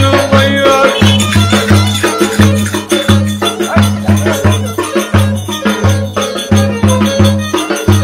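Live Turkish folk dance music: a violin plays the melody over a steady beat of deep bass hits and rattling percussion.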